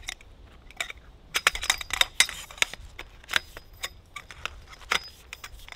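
Bungee-corded pole sections of a folding camp bed clicking and clinking together as they are drawn from their bag and fitted, with a quick run of clicks about one and a half to two and a half seconds in and a few single clicks after.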